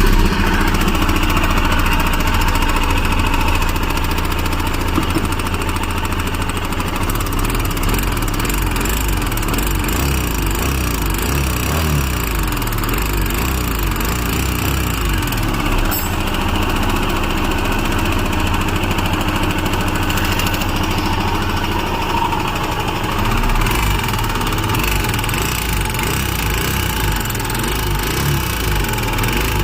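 Royal Enfield Himalayan BS6's single-cylinder engine running steadily, with a mechanical noise from the engine that the owner takes for a fault.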